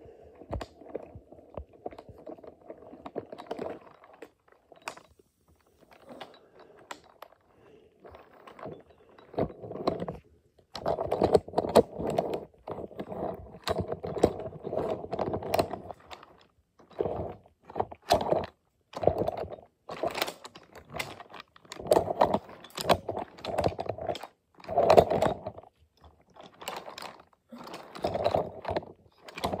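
Toy train cars rolling along a wooden track, rattling and clicking irregularly, busier and louder from about ten seconds in.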